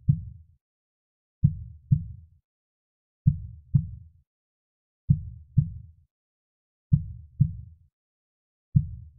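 Slow, low heartbeat: a lub-dub double thump about every 1.8 seconds, the two beats of each pair about half a second apart, with silence between the pairs. About five double beats in all.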